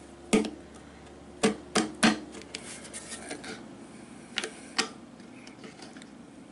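Screwdriver prying and scraping at a sink's metal drain flange: about six sharp clicks as the tip catches and slips, with fainter scraping between them.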